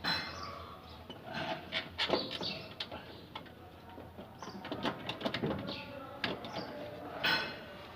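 Irregular clicks and knocks of tools and metal parts being handled while a replacement starter motor is fitted to a Toyota Hilux.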